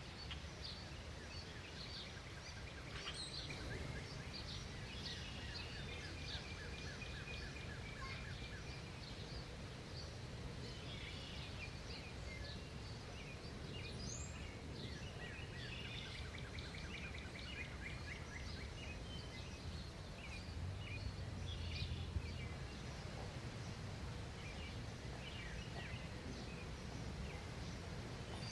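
Several wild birds chirping and trilling on and off, some calls as quick runs of repeated notes, over a steady low background rumble.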